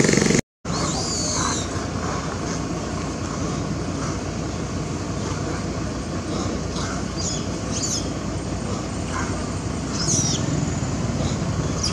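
Steady outdoor background noise with scattered short, high-pitched chirps, after a brief dropout about half a second in.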